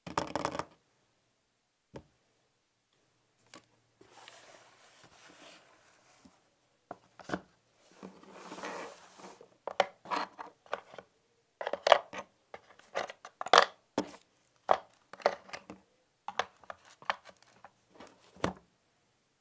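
GoPro camera and its accessories being handled and set into a padded hard-shell carrying case on a wooden table: soft rustling, then a long run of sharp clicks and knocks as the pieces are placed.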